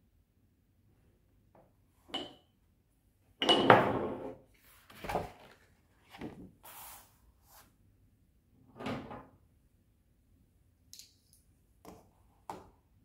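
Handling of a large thick watercolour paper pad: its card cover is lifted and flipped open with one loud flap and rustle a few seconds in, amid softer knocks, taps and rubs of hands on card and paper.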